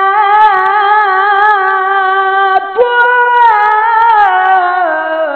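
A solo voice singing a Balti qasida in long, drawn-out wavering notes: one held note, a step up about halfway through, then a stepwise fall to a lower note near the end.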